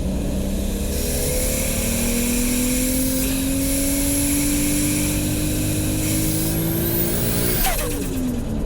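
Toyota Supra MK4's turbocharged 2JZ straight-six pulling through a gear, revs climbing steadily under boost with a high turbo whistle rising above the engine note. Near the end the throttle is lifted: a sharp burst of big-turbo flutter as the revs drop away.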